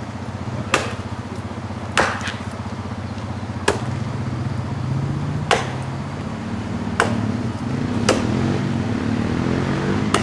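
An axe chopping into a fallen tree trunk: about seven sharp blows, roughly one every second and a half. An ATV engine idles steadily underneath.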